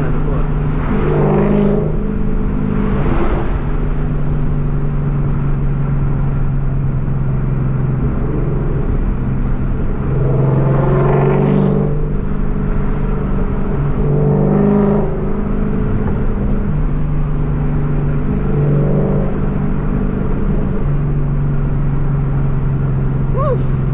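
Ford Mustang's 5.0 V8 engine and exhaust droning steadily, heard from inside the cabin while cruising. The engine note rises briefly a few times as the car accelerates.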